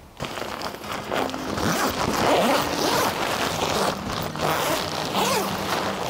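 Tent zipper being run along the seam, joining a long connector extension onto the tent's vestibule, with the nylon tent fabric rustling as it is handled.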